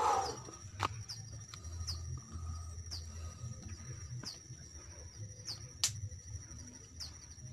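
A steady high-pitched insect drone in scrub forest, with short high chirps that sweep downward, repeating every half second to a second. A brief rustle at the very start and a low rumble of walking underneath.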